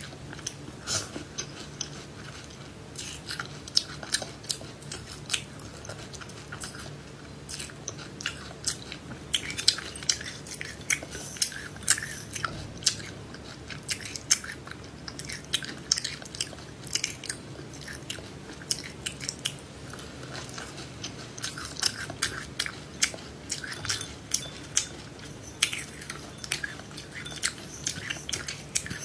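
A person chewing and crunching seeds close to the microphone: many sharp, irregular crunches in quick succession.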